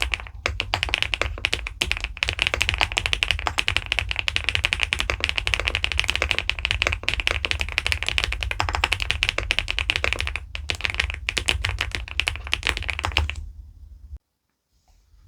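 Fast, continuous typing on an SPM PL87W mechanical keyboard with pebble-shaped keycaps: a dense run of rapid keystroke clacks that stops about two seconds before the end.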